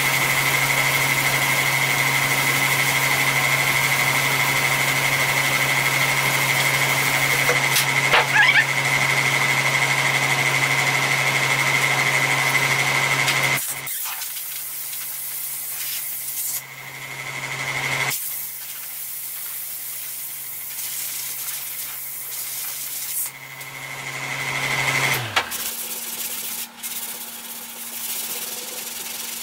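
A shop machine's motor running steadily, a low hum and a high whine over hiss. The hiss drops away about 13 seconds in, and the motor winds down with falling pitch and stops about 25 seconds in.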